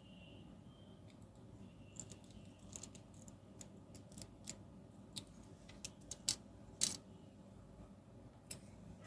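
Scattered light clicks and taps, irregular and a second or so apart, from small tools and plastic fountain pen parts being handled while epoxy glue is applied inside the pen; the sharpest click comes about seven seconds in.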